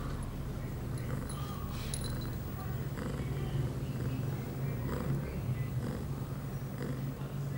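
Ragdoll cat purring steadily and continuously while being stroked.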